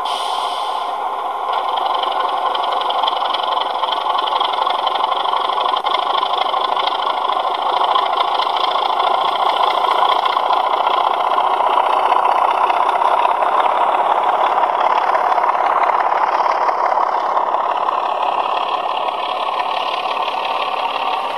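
Model Class 26 diesel locomotive's sound decoder playing the diesel engine running under power through its small speakers, thin and without deep bass. The engine sound steps up louder about two seconds in as the train gets under way, and a higher tone falls away near the end.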